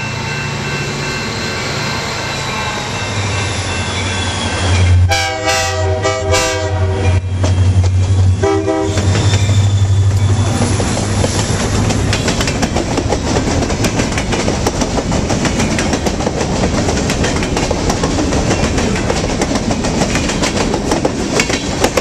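Diesel freight locomotive passing close by, its engine running with a heavy low hum as it spools up. Its horn sounds in several short blasts about five to seven seconds in, with one more near nine seconds. After that the tank cars roll past with rapid clacking of wheels over the rail joints.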